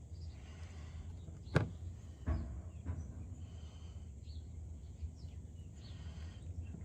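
Workshop handling noise over a low steady hum: one sharp click about one and a half seconds in, a softer knock shortly after, and a few faint ticks.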